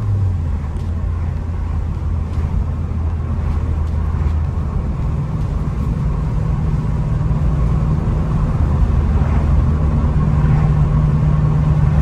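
A 2022 Subaru WRX's turbocharged flat-four with an Invidia R400 catback exhaust, heard from inside the cabin while cruising at steady speed: a low, even exhaust hum, quiet and without drone.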